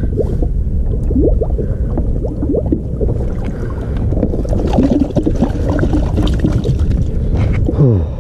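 Wind buffeting the microphone over water lapping and gurgling around a kayak's hull, with small knocks and rustles of gear being handled on the deck.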